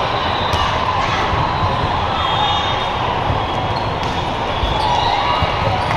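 Steady din of a big hall full of volleyball courts: many voices blending together, with a few sharp smacks of volleyballs being hit or bouncing.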